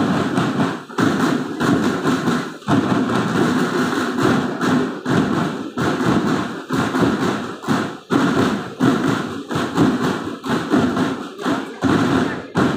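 Military band's drum line playing snare drums together in a steady, driving rhythm of fast repeated strokes.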